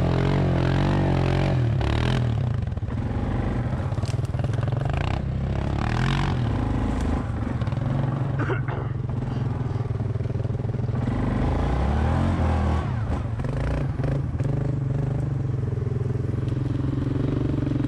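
Yamaha 700 ATV's single-cylinder engine running on a muddy trail, its engine speed rising and falling with the throttle, with scattered knocks and scrapes against the machine.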